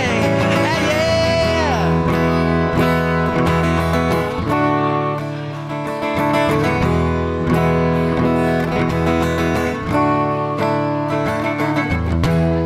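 Acoustic guitar played live, strumming chords.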